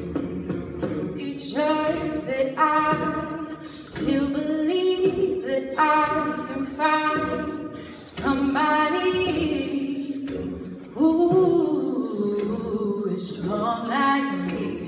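A cappella group singing: a female lead voice sings phrases over the ensemble's sustained vocal backing harmonies, with no instruments.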